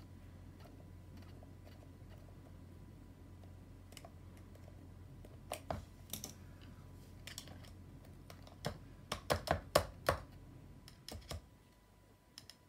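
Sharp clicks and taps of a screwdriver and a metal lock washer against an Uppababy Vista stroller's rear wheel hub as the washer is pressed down over the axle's locking balls to seat it in its groove. A few scattered clicks come about halfway through, then a quick run of them several times a second, over a faint steady hum.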